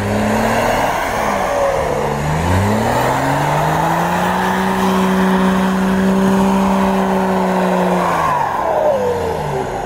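Off-road 4x4's engine revving hard while its big tyres spin and churn in deep snow. The revs climb about two seconds in, hold high for several seconds, then drop near the end. The vehicle is stuck in the snow.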